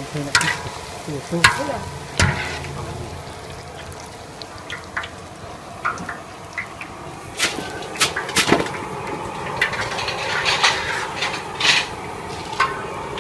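Irregular clinks and knocks of a mesh strainer and utensils against metal woks and a colander as boiled noodles are stirred and moved, over a steady hiss.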